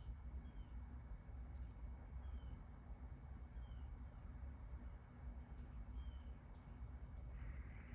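Small birds giving short, high chirps about once a second over a steady low rumble of city background noise.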